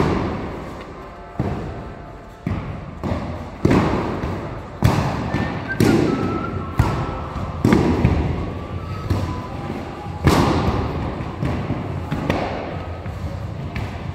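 Padded sparring swords striking round shields, a string of dull thuds roughly a second apart, each echoing in a large stone hall.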